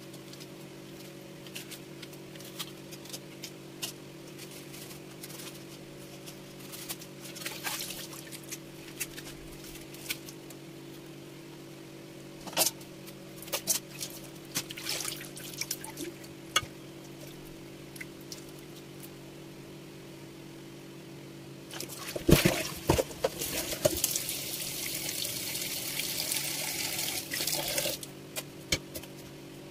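Sharp clicks and knocks of a knife and hands working a triggerfish on a wooden chopping block, over a steady motor hum. About 22 seconds in, water starts running and hisses for about six seconds, then stops.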